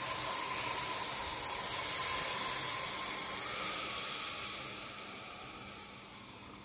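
Dark caramel hissing and steaming as hot milk and cream are poured into it to stop its cooking. The hiss holds steady for a few seconds, then gradually fades away.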